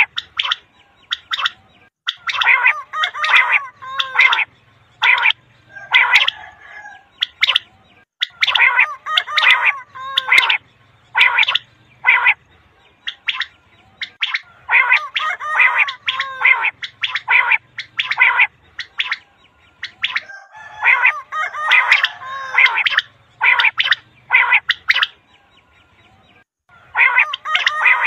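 Common quail calling: short, sharp notes given in rapid runs, with pauses of a second or two between runs.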